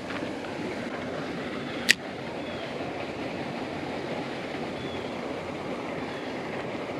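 Steady outdoor noise haze with one sharp click about two seconds in and a few faint, short high chirps later on.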